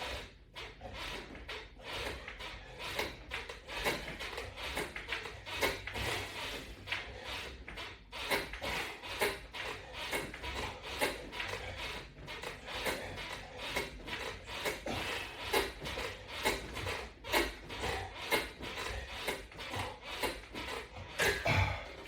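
Repeated rubbing and creaking of resistance bands and a bench during a set of pull-down crunches, a few irregular strokes each second.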